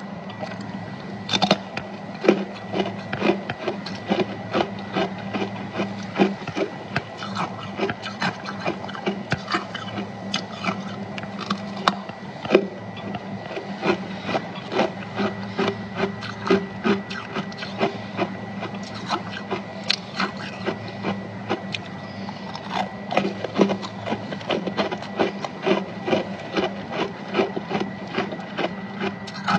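Close-up crunching of freezer frost being chewed: a rapid, irregular run of crisp crackles, several a second, over a steady low hum and a faint high whine.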